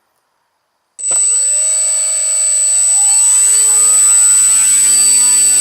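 Electric motor and propeller of an Opterra 2 m flying wing on a static power test, starting suddenly about a second in and spinning up over the next two seconds to about half throttle, then running steadily with a high steady whine over it.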